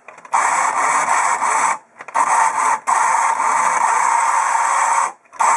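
Swingline 525 electric three-hole punch's motor and cam drive running with its cover off, a loud steady mechanical noise in four stretches with short breaks between them. It is cycling the pistons, which now retract fully after the bent piston upright and cam journal were straightened.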